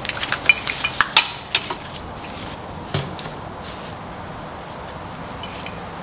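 Light metallic clicks and clinks of a car seat belt assembly's metal hardware, its anchor plates and mounting bolts, being handled. They come in a quick cluster over the first two seconds, with one more clink about three seconds in.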